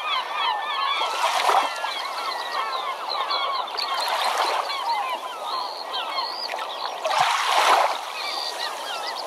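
A flock of many birds calling over one another, a dense chatter of short rising and falling calls, with three brief swells of rushing noise.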